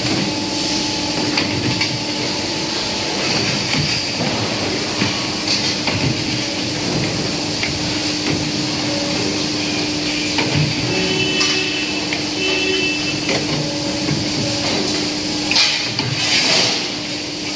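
CNC pipe bending machine at work, bending a metal tube: a steady hum of the machine running, with scattered knocks and clicks as it clamps, feeds and bends, and a louder rush of noise near the end.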